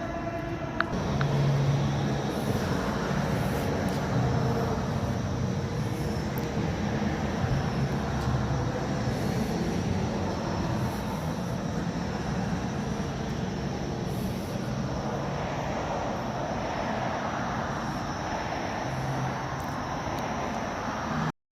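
Distant party noise carrying across open ground at night: a steady din with low bass notes from amplified music coming and going. It cuts off suddenly near the end.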